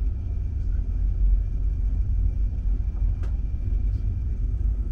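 Running noise of a moving sleeper-train car heard from inside the compartment: a steady low rumble of wheels on track with a faint steady high hum, and a sharp click about three seconds in.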